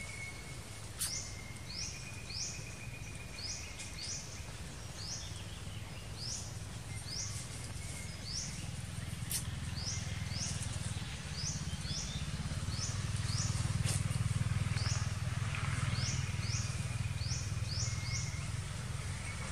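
A bird chirping over and over, short high notes about one or two a second, over a low steady rumble that grows louder in the second half.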